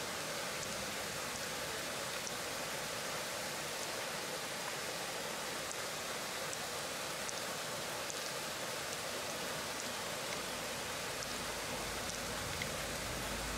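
Steady rushing of river water, an even hiss with a few faint small clicks scattered through it and a low rumble coming in near the end.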